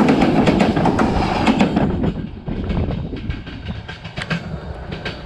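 Train wheels rolling on the rails directly overhead, a loud rumble full of sharp clicks. About two seconds in the last wheels pass and the sound drops to a fainter rumble with scattered clicks as the train pulls away down the track.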